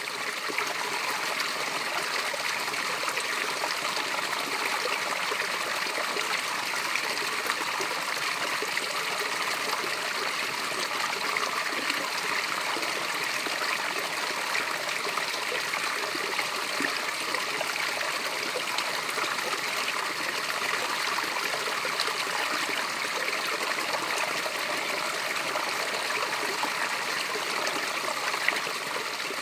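Water pouring down a cascade: a steady, even rush of falling and running water with no breaks or changes.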